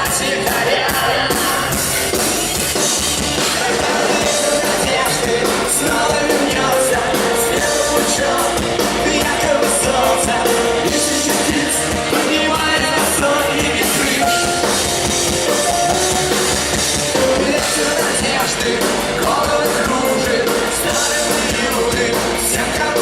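Live rock band playing the song at full volume: a drum kit hits steadily under sustained pitched instrument lines, with no clear lyrics.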